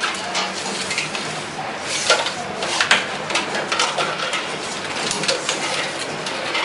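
White plastic strap pulled by hand off its coil and fed through a strapping machine's guides: rustling and sliding with irregular clicks and clatters of the strap and machine parts.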